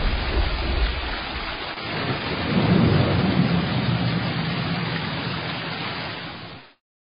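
Thunderstorm: a low rolling thunder rumble over a steady rain hiss, swelling about three seconds in and fading out near the end.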